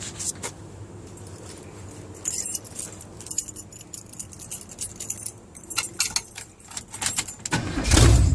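Keys jangling on a keyring and clicking at the ignition, then near the end the freshly installed 454 big-block V8 in an 1982 GMC truck starts up, suddenly loud and low, firing on the first turn of the key.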